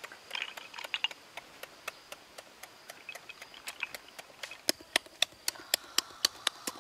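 Irregular small sharp clicks and smacks from eating cooked snails, from the mouth and the shells being handled. They come sparsely at first, then faster and louder in the last third.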